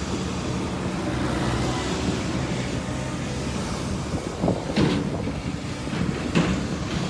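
Road traffic: vehicles running and passing steadily, with a couple of short sharp knocks about five and six and a half seconds in.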